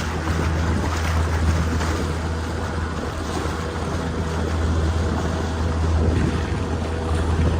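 Motorboat engine running steadily with a low drone, under an even rush of water and wind noise.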